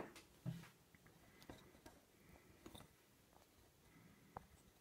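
Near silence with a few faint clicks and a soft knock about half a second in: small handling noises of the padlock and tools.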